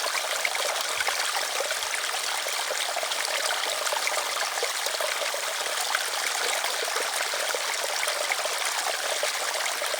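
Stream water running steadily over stones, a continuous trickling and splashing with many small fine splashes and no deep rumble.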